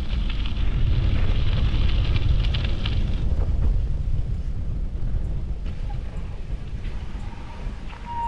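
Wind buffeting the microphone: a loud, continuous low rumble, with a brighter hiss in the first three seconds that then drops away.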